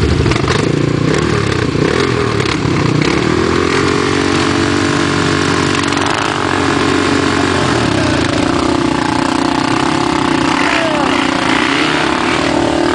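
Single-cylinder sport quad engines running hard off-road, the throttle revving up and easing off.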